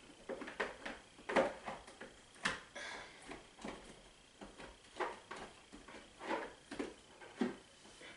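Plastic glue bottles knocking and clacking against one another and the plastic bowl as a hand rummages through them: irregular knocks, about one or two a second.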